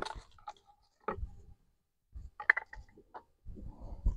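A few light clicks, taps and knocks of hands handling a small plastic oil bottle at the mower, with a quick cluster of clicks about halfway through.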